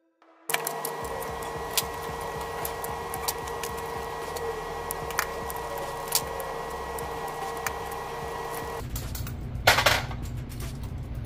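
Large steel shark hooks on cable leaders clicking and clinking against each other as they are handled, over a steady hum. About ten seconds in comes a short, louder metallic clatter as the bundle of hooks is hung on a pegboard peg.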